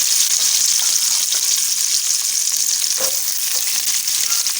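Onions sizzling in hot oil in a frying pan, a steady hiss, with a single light knock about three seconds in.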